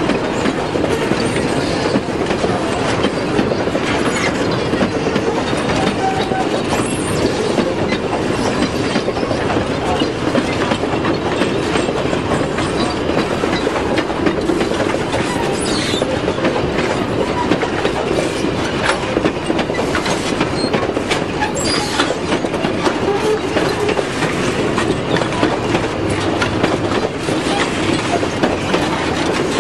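Narrow-gauge passenger carriages rolling past, their wheels making a steady clatter over the rail joints.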